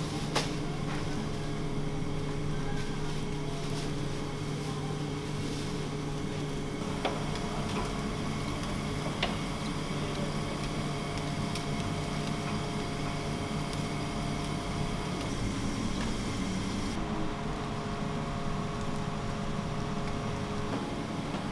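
Steady hum of kitchen machinery, with a few brief knocks from handling utensils.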